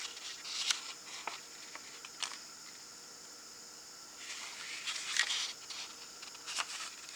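Pages of a paper tarot guidebook being turned: light paper flicks and rustles, with a longer rustle about four seconds in.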